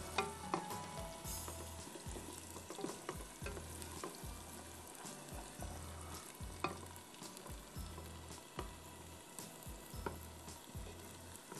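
Chopped onions sizzling as they fry in hot oil in a deep metal pot, stirred with a wooden spoon that knocks against the pot now and then.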